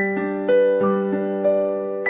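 A Meizu Flyme AiOS stock phone tone: a gentle electric-piano melody of struck notes that ring on under one another, a new note about every half second.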